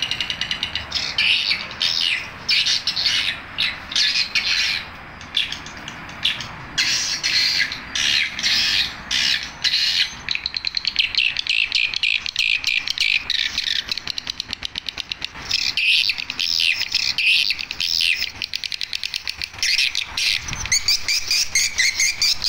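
Recorded swiftlet calls played through a horn tweeter driven by a NESTPRO BS-20 swiftlet-house amplifier: fast, high, chirping twitters in bursts about a second long with short gaps between them.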